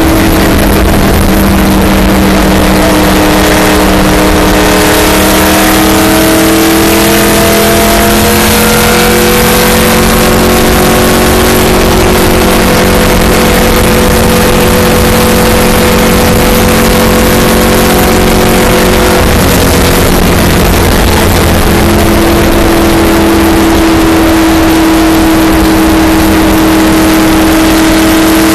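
Stock car's V8 engine running hard at high track speed, heard from inside the cockpit: a steady, very loud engine note whose pitch rises and falls only slightly, over heavy wind and road noise.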